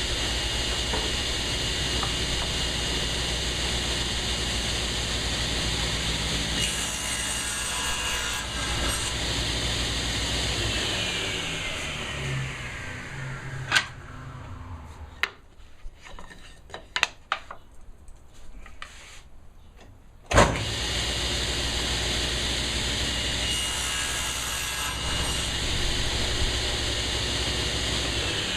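Delta table saw running and cutting through a board, then switched off and winding down with a falling whine. A few sharp knocks of wood being handled follow, then the saw starts up again suddenly about twenty seconds in, makes another cut and begins to wind down near the end.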